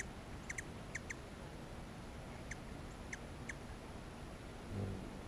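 Hummingbirds at a nectar feeder giving short, squeaky chip notes, some single and some in quick pairs, scattered irregularly, with a brief low wing hum near the end.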